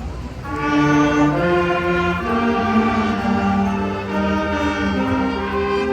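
An elementary-school wind band of brass and woodwinds begins playing about half a second in, with slow, held chords.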